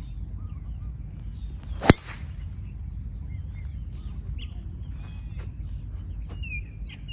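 A golf driver strikes a ball off the tee, one sharp hit about two seconds in with a brief ring after it. Faint bird chirps sound in the background.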